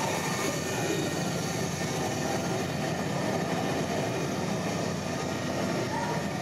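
Steady running noise of a model railway and miniature airport layout, an even mechanical noise with a few faint thin whining tones in it.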